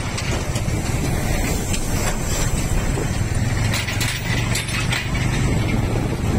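Road traffic with a steady low engine drone, intermittent metallic rattling and clicking, and a noisy haze of wind and tyre sound.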